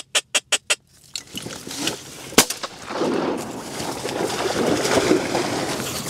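A rapid string of duck quacks, short evenly spaced notes, stops about a second in. About two and a half seconds in comes a single shotgun blast, the loudest sound, followed by steady rustling noise.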